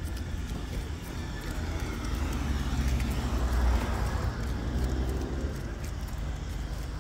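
A car passing on the street, its noise swelling to a peak about halfway through and then fading, over footsteps on the sidewalk.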